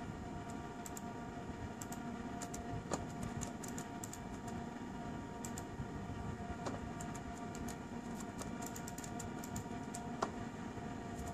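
Laptop keys being typed and clicked in short irregular runs while AutoCAD commands are entered, over a steady electrical hum.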